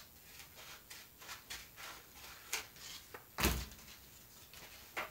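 Scissors snipping through brown pattern paper in a quick run of cuts, then a louder thump about three and a half seconds in and a sharp click near the end.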